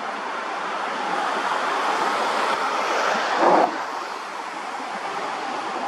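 Steady rushing outdoor noise that swells toward the middle, with a brief louder burst about three and a half seconds in.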